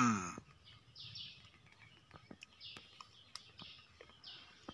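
Birds chirping outdoors: short, high chirps repeating roughly once a second, with a louder call falling steeply in pitch right at the start.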